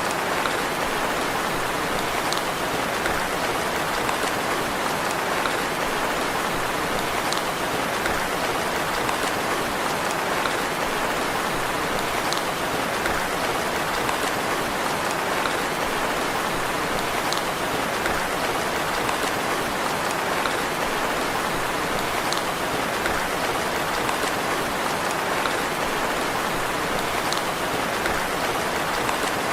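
Steady rain falling: an even hiss with faint separate drop ticks every couple of seconds.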